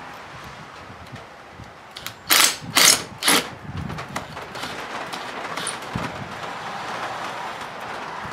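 Cordless drill-driver run in three short bursts a couple of seconds in, backing out the screws that hold an electrical outlet in its box.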